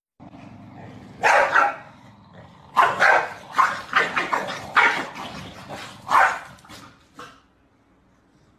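A corgi barking: a run of about a dozen short barks over some six seconds. The barks stop about seven seconds in.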